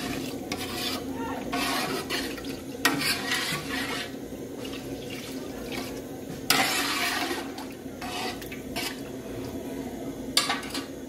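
A metal spoon stirring and scraping in an aluminium cooking pot of stock and coconut milk, with irregular strokes, occasional clinks against the pot and a louder burst about six and a half seconds in, over a steady low hum.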